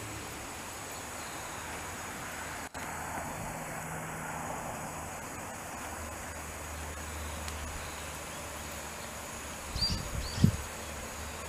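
Steady outdoor background hiss with a faint, unbroken high insect drone. The sound drops out for an instant about a third of the way in, and a few low bumps hit the microphone near the end.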